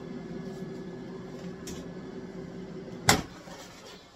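Ultenic K20 dual-basket air fryer running with a steady fan hum. About three seconds in there is a single sharp clack as a basket is pulled out, and the hum dies away as the fryer pauses.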